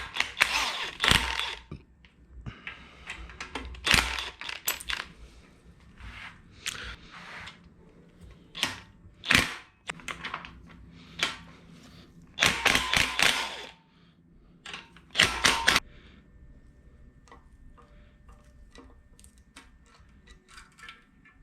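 Hand tools working on an engine block: a ratchet clicking in short quick runs and metal clinks of tools and bolts while the oil pump is unbolted. The runs are loudest about halfway through, and after that only scattered lighter ticks remain.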